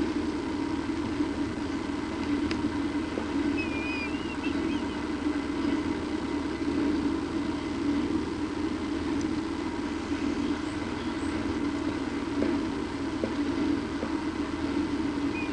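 Steady low mechanical hum, with a few short, high bird chirps about four seconds in and again near the end.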